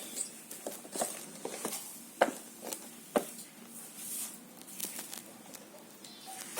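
Scattered light taps and clicks of small objects being handled, a few a second, the sharpest about two and three seconds in.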